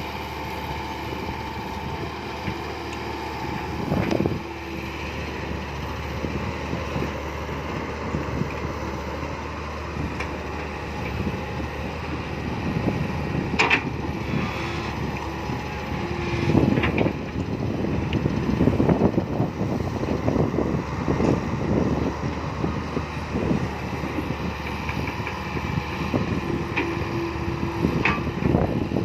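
Komatsu PC120-5 hydraulic excavator at work loading soil: its diesel engine runs steadily, with irregular knocks and clatter from the working machine that grow louder and busier from about halfway through.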